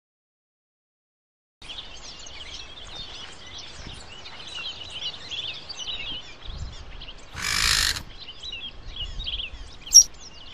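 Silence, then after about a second and a half a chorus of many small birds chirping. A short rushing whoosh comes about seven and a half seconds in, the loudest sound, and a single sharp click near the end.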